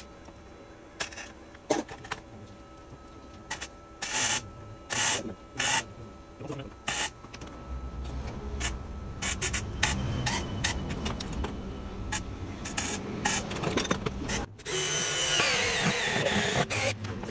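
Short crackling bursts of electric welding and knocks of a hammer on metal, as the seized titanium bolt head is welded onto to get it out. After a cut about fourteen and a half seconds in, a power drill with a hole saw runs loudly, its whine wavering as it bites.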